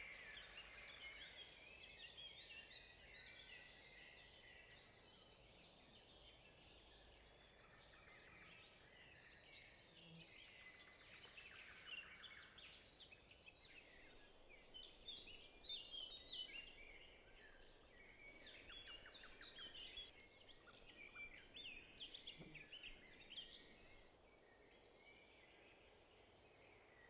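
Faint chorus of small birds chirping and twittering, a busy overlapping mix of short high calls with a quick trill near the middle.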